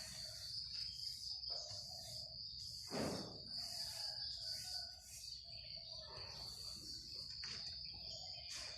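Insects such as crickets drone steadily at a high pitch, with repeated bird chirps over it. A short dull thud about three seconds in is the loudest moment.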